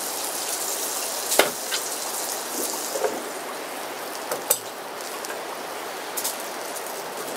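Butter sizzling steadily in a Trangia frying pan over a gas burner as bread fries in it, with a few sharp knocks, the clearest about one and a half seconds and four and a half seconds in.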